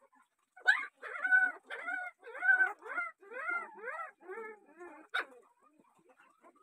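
A puppy yelping and whining in a rapid series of short cries, about three a second, growing fainter over a few seconds: distress at being held and handled.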